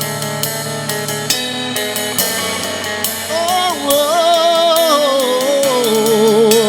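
Contemporary worship band playing an instrumental interlude between sung lines: steady bass and drum hits, with a wavering lead melody entering about three seconds in.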